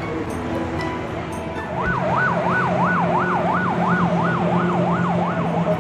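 An electronic siren sounding a fast yelp, its pitch sweeping up and down about three times a second. It starts about two seconds in and cuts off abruptly at the end.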